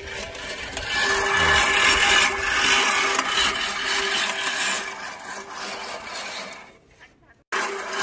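Manual push reel mower rolling across grass, its spinning blade reel making a steady whirring rasp as it cuts. The sound breaks off for a moment near the end and then starts again.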